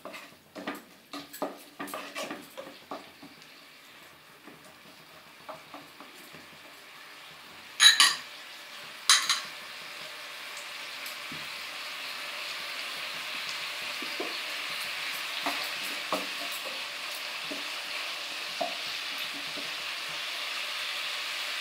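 A slotted spatula stirring and scraping onions, capsicum and green chillies frying in chilli and soy sauce in a nonstick kadai. Rapid clicks come first, then two sharp knocks about eight and nine seconds in. A steady sizzle then builds through the second half, with occasional spatula clicks.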